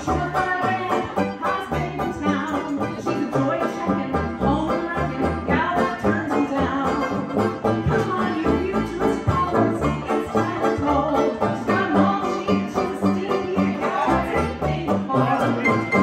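Small hot-jazz band playing live, a strummed banjo to the fore over a steady bass beat while the horns rest.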